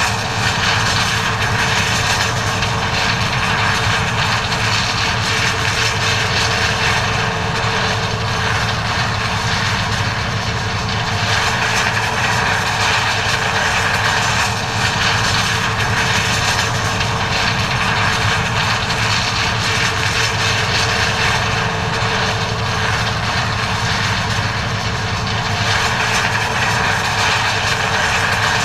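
John Deere 9400 combine harvester running steadily while harvesting corn: a diesel engine hum with threshing machinery and a steady whine over it.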